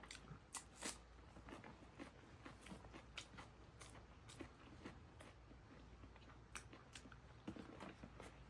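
Faint eating sounds: scattered crunches and mouth clicks of someone chewing food.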